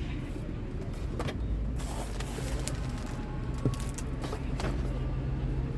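A car-detailing brush set being taken out of its plastic packaging: a scatter of crinkles and clicks, over a steady low mechanical hum.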